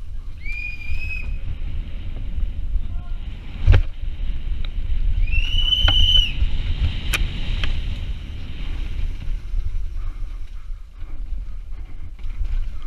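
Wind buffeting a helmet camera's microphone at speed on a downhill mountain bike, with the rattle and knocks of the bike over rough dirt and stone; the sharpest knock comes a little under four seconds in. Two high whistles cut through, one about half a second in and a longer one around five to six seconds in.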